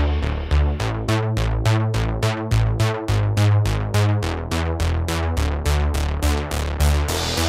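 Electronic background music with a steady drum-machine beat, about four hits a second, over synthesizer bass notes.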